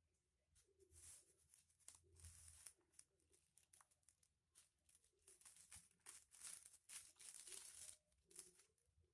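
Foil-covered paper crinkling and rustling as it is folded and creased, a faint series of short rustles, the longest about two thirds of the way through.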